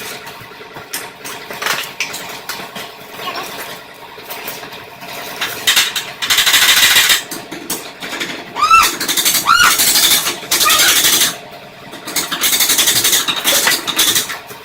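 Impact wrench hammering in three bursts of about a second each, with two short squeals between the second and third bursts, typical of suspension bolts being driven during a lift kit install.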